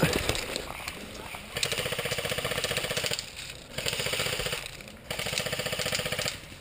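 Rapid mechanical rattle from airsoft gear, coming in three runs of about a second and a half each, with short breaks between them.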